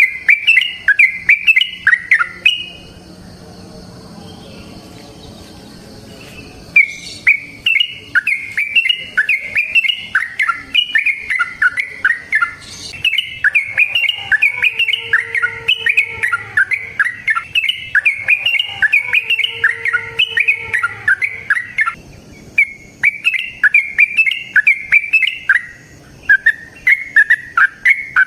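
Yellow-vented bulbul (trucukan) singing long runs of fast, repeated chattering notes. There is a pause of a few seconds early on and a brief break about three-quarters of the way through.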